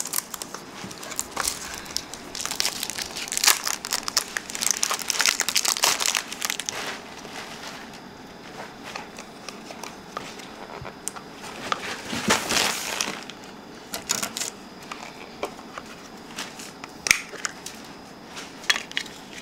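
Plastic packaging crinkling and crackling as a lens filter's plastic pouch and snap case are opened by hand: dense crinkling for the first third, a louder rustle a little past the middle, then scattered clicks of the plastic case.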